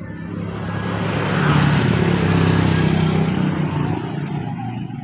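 Motorcycles riding past close by. The engine and road noise swells to a peak about two seconds in, then fades away.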